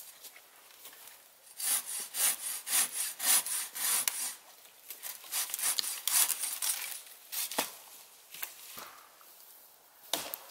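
Hand saw cutting through pine wood in quick back-and-forth strokes, in two runs with a short pause between. A single sharp knock comes near the end.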